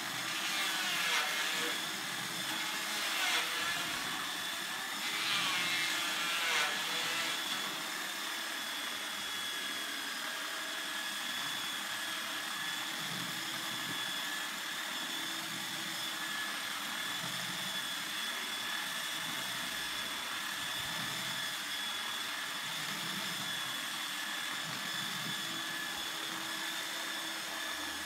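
Electric power sander running steadily against a wooden tabletop, with a constant high whine over a broad hiss.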